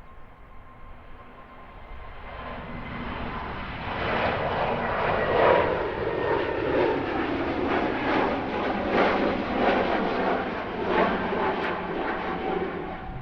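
Airliner engines passing close, the noise swelling over the first few seconds and then staying loud, with a low tone slowly falling in pitch as it goes by.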